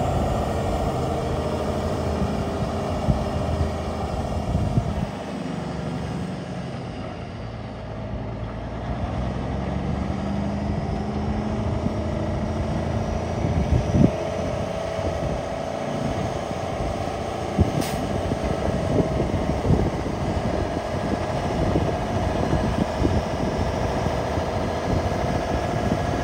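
1994 Kenworth T800 tractor's diesel engine running as the truck drives slowly across a gravel lot. It grows fainter a few seconds in and louder again as the truck comes by, with scattered crackles in the second half.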